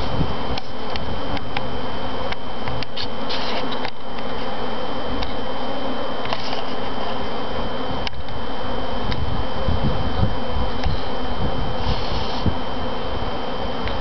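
Steady buzzing of a dense crowd of honey bees at a hive entrance, the colony's guards fighting off robber bees.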